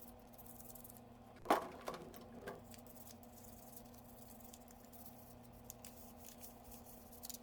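Three light knocks of something hard, the first and loudest about a second and a half in, followed by scattered faint clicks over a steady faint hum.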